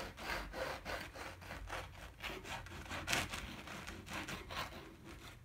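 Serrated bread knife sawing through a crusty baked French loaf on a wooden cutting board: a quick series of rasping back-and-forth strokes, about three a second, with one louder stroke about three seconds in.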